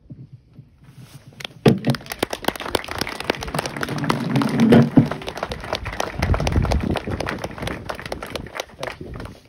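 Audience applauding: a dense patter of clapping starts about a second and a half in and dies away near the end.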